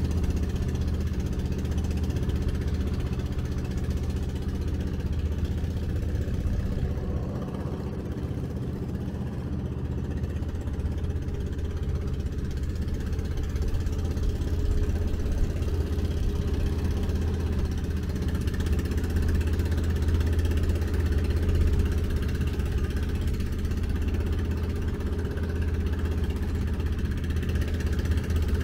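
A small passenger ferry's engine running steadily with a low, even drone, heard from on board.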